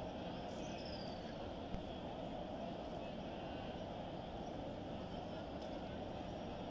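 Steady hubbub of a vast crowd of pilgrims circling the Kaaba, countless voices and movements blended into one dense murmur with no single voice standing out. One short click about two seconds in.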